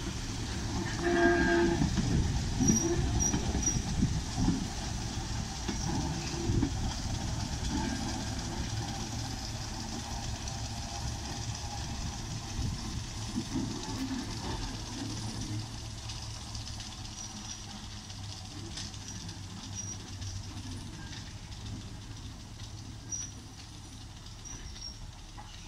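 Heritage passenger train of coaches, pushed from the rear by Sentinel vertical-boiler steam locomotive No. 7109, rolling past on the rails: wheels rumbling and clicking over the rail joints, then fading as the train draws away. A short pitched toot sounds about a second in.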